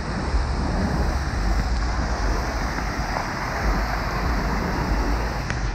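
The Truckee River's fast, shallow water rushes steadily over rocks and small rapids, with wind buffeting the microphone as a low rumble underneath.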